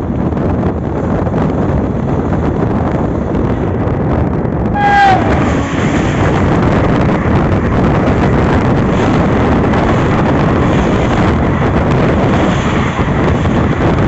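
Running noise and wind of a moving train heard from its open door; about five seconds in, a short horn blast from the oncoming WAP5 electric locomotive, falling in pitch at its end as it passes, then the louder rush of its coaches going by on the next track.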